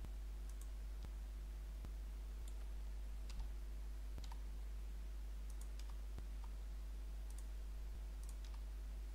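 Computer mouse and keyboard clicks, about a dozen scattered sharp ticks, as vertices are extruded and placed one after another. Under them is a steady low electrical hum.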